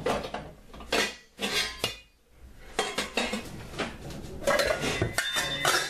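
Stainless steel pot clanking and knocking on a glass-top electric stove: a series of irregular metal clinks and knocks, some with a brief ringing, thickest near the end.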